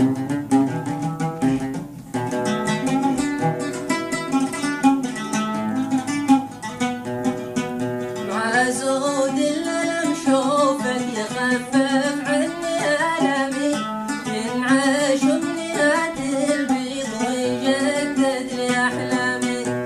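Music led by a plucked string instrument playing an instrumental passage of a Yemeni song; about eight seconds in a brighter, wavering melody line joins.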